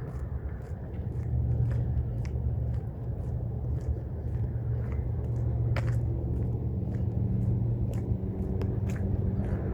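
Heavy construction machinery engine running with a steady low rumble and scattered clicks and knocks. A pitched engine hum comes up about six seconds in.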